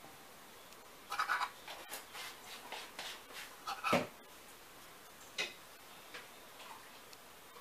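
Rolled dumpling dough being cut into pieces and handled on a floured wooden tabletop: a scatter of short scrapes and taps, the loudest a single knock about four seconds in.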